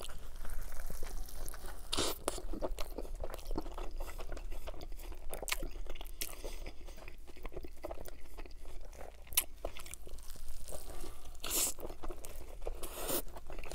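Close-miked biting into and chewing a stacked double cheeseburger with lettuce, tomato and sauce: a steady run of many small mouth clicks and chews.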